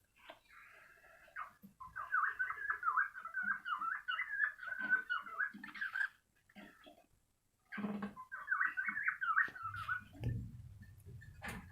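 Cockatiel warbling its chirpy song in three runs, the longest lasting about four seconds, with a sharp click near the end.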